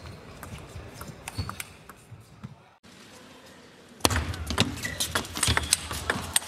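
Table tennis rally: the celluloid ball clicking sharply off the bats and table in quick succession. The sound drops out briefly near the middle, then comes back louder with hall noise and a fast run of ball strikes.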